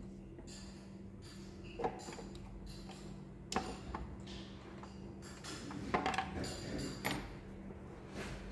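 Metal hand tools clinking and knocking against engine parts, a handful of sharp separate clinks over several seconds, during disassembly of the fuel injectors and fuel rail. A steady low hum runs underneath.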